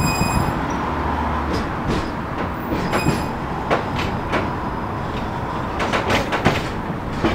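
Type 71-623.02 tram running along the track, heard from inside the car: a steady rumble with a series of irregular sharp clicks and knocks from the wheels and body. Brief thin high-pitched tones come near the start and again about three seconds in.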